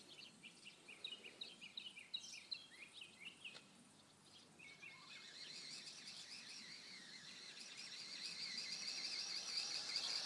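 Small birds chirping in quick short calls for the first few seconds. Then a high, steady buzzing sets in and grows gradually louder to the end.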